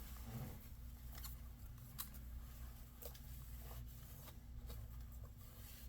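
Faint rubbing of a dry rag wiped around a laptop screen bezel, with a few light ticks, over a low steady hum.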